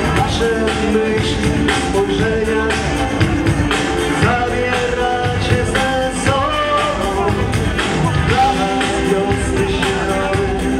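A live band playing a song: a man singing in Polish over guitars and a steady drum beat.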